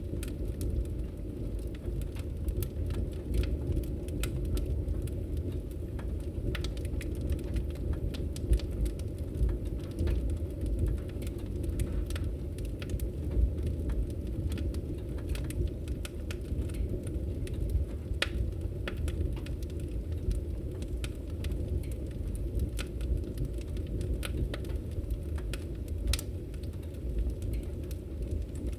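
Fire crackling: irregular sharp pops and snaps scattered over a steady low rumble of the flames.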